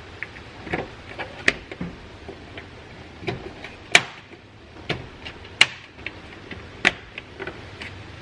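Plastic push-pin retainer clips being pressed into a plastic engine-bay trim panel: a string of sharp clicks and snaps at irregular intervals, with lighter handling knocks between them.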